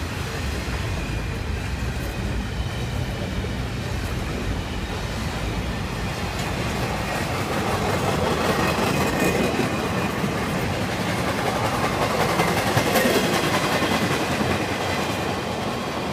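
Empty flatcars of a passing freight train rolling by on steel wheels, clacking over the rail joints, louder in the middle and easing near the end as the train moves away.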